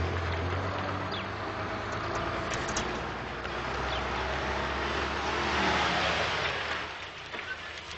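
Bus engine running as it drives along, swelling to its loudest about six seconds in, then fading away.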